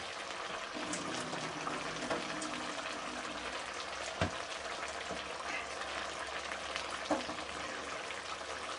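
Juice from salted diced zucchini trickling and splashing into a stainless steel sink as the pieces are pressed by hand in a plastic bowl. Two light knocks come about four and seven seconds in.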